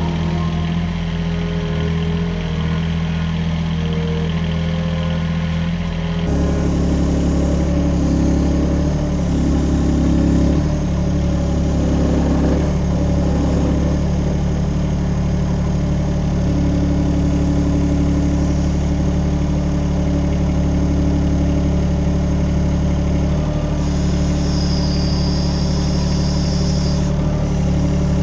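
Music over an engine running, until about six seconds in. Then the UHI UME12 mini excavator's small Yanmar engine runs steadily and louder while digging, its pitch shifting under load. Near the end a higher whine comes in for a few seconds.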